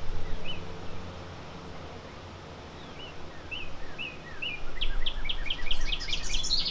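A bird chirping: a few scattered short chirps, then a quick run of rising chirps in the last two seconds.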